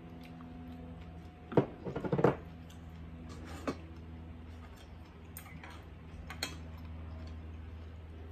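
A glass jar is set down with a cluster of knocks and clinks about one and a half to two seconds in. After that come a few scattered light clicks of chopsticks and dishes, over a steady low hum.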